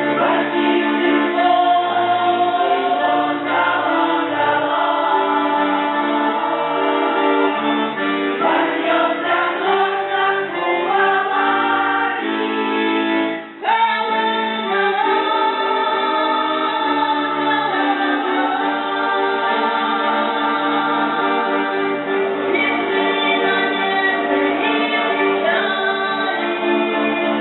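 Russian folk choir singing a song in several voices, with a brief break about halfway through before the singing resumes.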